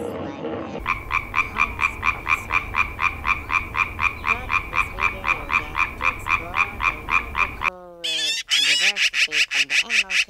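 A frog calling in a long, steady pulsed croak, about four to five pulses a second. Near the end the croaking cuts off and a bird call follows: a few falling notes and then a fast, high trill.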